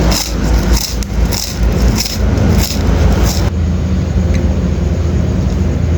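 Close-up chewing of crisp raw water spinach: loud crunches at about two or three a second, giving way about halfway through to softer, wetter chewing. A steady low hum runs underneath.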